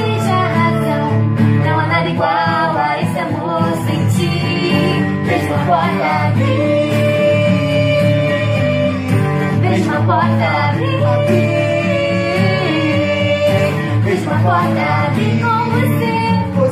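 A female voice singing a pop duet over instrumental backing, holding several long notes.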